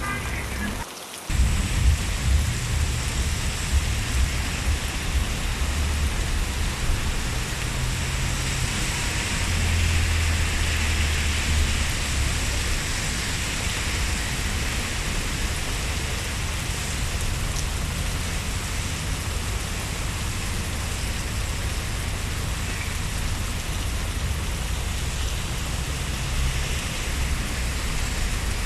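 Steady rain falling on a wet city street: an even hiss with a low rumble underneath. The sound briefly drops out about a second in, then comes back at the same level.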